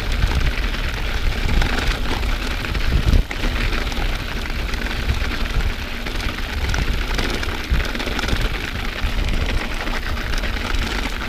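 Bicycle tyres rolling over packed snow, heard from the rider's own camera: a steady noisy rush with a fluctuating low rumble from bumps and wind on the microphone.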